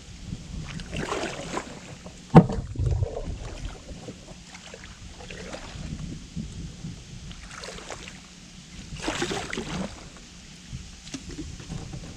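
A canoe being worked through a shallow, mud- and weed-choked stretch of river: scrapes and scuffs of the paddle and hull, with one sharp knock and a low thud about two seconds in.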